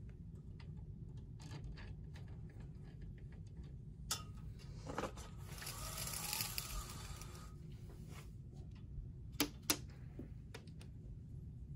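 Horizontal window blind slats clicking and rustling as a small dog pushes its head under them, over a low steady hum. A longer stretch of rustling falls about halfway through, and two sharp clicks come near the end.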